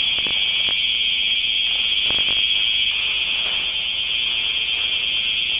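Hotel building alarm ringing continuously, a steady high-pitched electronic ring with no breaks, sounding as a warning of a suspected gas attack.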